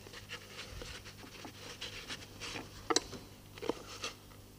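Quiet rustling of a cloth being handled and unwrapped from a rolled sheet of fresh pasta dough on a wooden board, with a few light taps and clicks, the sharpest about three seconds in.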